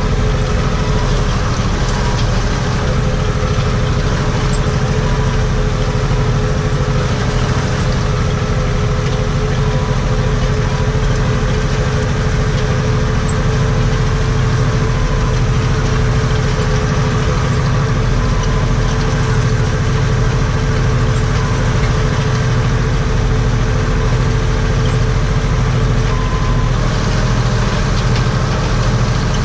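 Steyr 964 Turbo tractor's turbocharged diesel engine running steadily under load, heard from inside the cab, with a steady whine over the low drone as it drives a PTO-powered rotary rake.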